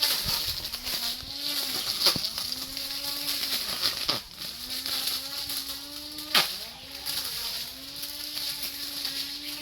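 Lawn mower motor running at high speed, its pitch sagging and recovering every second or two as it bites into grass, with three sharp clicks of something striking.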